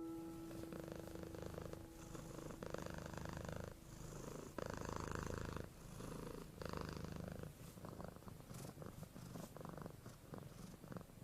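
Domestic cat purring, the purr swelling and fading with its breathing about every two seconds.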